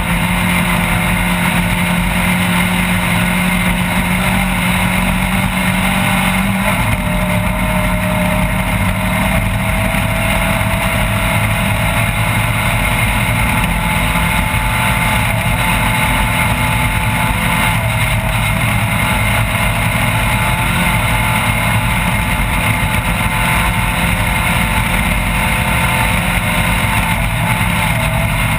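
Off-road race vehicle's engine running hard and steadily at speed under a loud wash of driving noise; the engine note shifts about six and a half seconds in.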